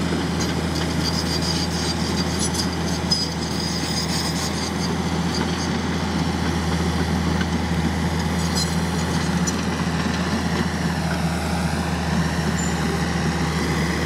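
Case crawler bulldozer's diesel engine running steadily as the machine tracks across the dirt, with high metallic clinking and squeaking from the running gear in the first few seconds and again about two-thirds of the way through.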